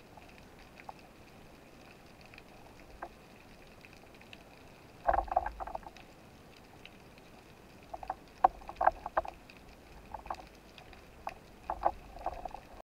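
Knocks and rattles of spearfishing gear and the speared fish being handled beside a speargun-mounted camera, heard underwater through its housing: a quiet hiss with a faint steady high tone, broken by clusters of sharp clicks and knocks with a low rumble about five seconds in, around eight to nine seconds, and again near the end.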